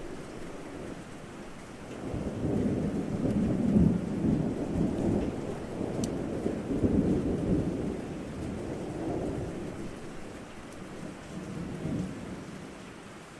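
Rolling thunder rumbles over steady rain. The rumble swells about two seconds in, peaks twice, and dies away near the end.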